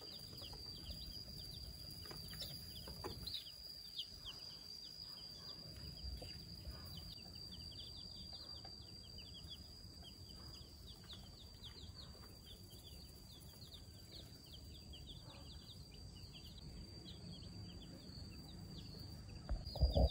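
A brood of baby chicks peeping all together: a continuous chorus of short, high, falling cheeps over a steady faint high whine and a low rumble. A couple of louder knocks come near the end.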